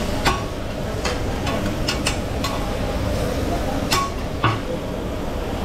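Chicken and vegetables sizzling on a hot teppanyaki griddle while metal tongs and a spatula scrape and stir across the steel, with several sharp clinks of metal on the griddle.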